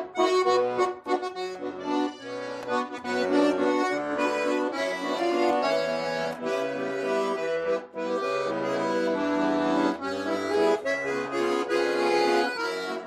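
Accordion playing an instrumental passage, a melody in held chords over a moving line of bass notes.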